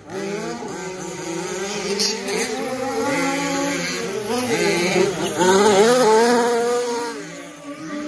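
Motors of several remote-control 4WD race trucks running on a dirt track. Their pitch rises and falls as they accelerate and brake, overlapping, and they get louder about halfway through.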